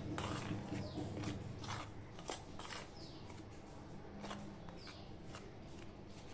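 Metal spoon stirring and scraping dry flour mix against a stainless steel plate: a string of short scrapes and light clicks, about two a second.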